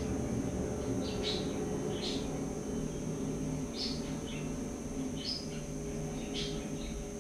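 A small garden bird chirping: short, high calls repeated about once a second, over steady low background noise.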